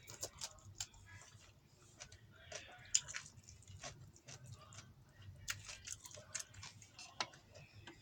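Faint chewing of a meal eaten by hand, with irregular small clicks and smacks.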